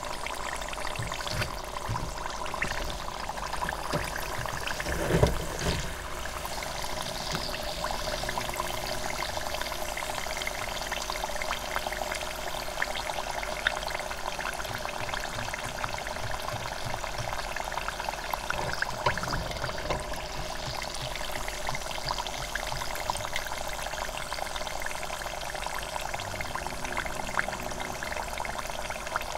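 Spring roll deep-frying in an electric deep fryer, the hot oil bubbling and crackling steadily around it. A dull knock about five seconds in.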